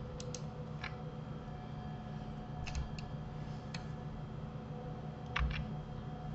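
Sparse clicks of a computer mouse and keyboard, about eight in all, some in quick pairs, over a steady low electrical hum.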